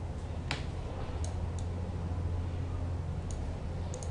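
A few short computer-mouse clicks, the sharpest about half a second in, over a steady low electrical hum.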